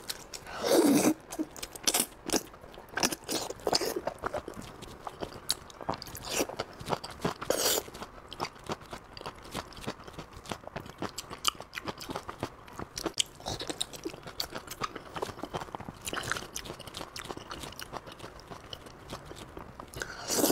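Close-miked eating sounds of a person biting and chewing braised pork knuckle: a rapid run of short clicks and mouth smacks, with louder bites about a second in and again about seven and a half seconds in.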